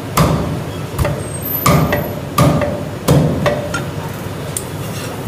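Heavy Chinese cleaver chopping a poached chicken breast into pieces on a thick round wooden chopping block: about five sharp, heavy chops, a little under a second apart.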